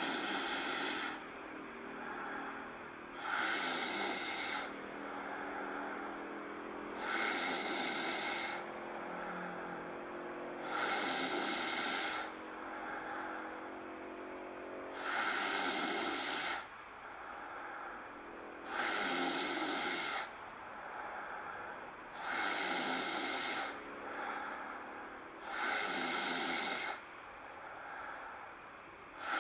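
A cat snoring in a steady rhythm: a louder snore about every four seconds, eight in all, with a softer breath between each.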